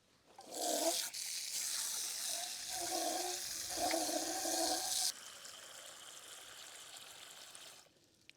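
Water running, strong for about five seconds, then weaker until it stops near the end.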